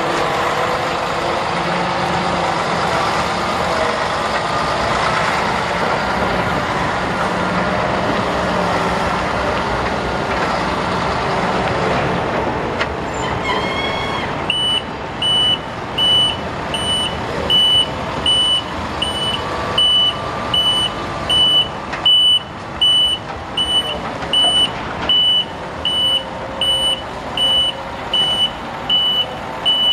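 Volvo A35 articulated dump truck's 12-litre six-cylinder turbo diesel running as the truck drives. About halfway through the backup alarm starts, one high beep about every second, over the engine while the truck reverses.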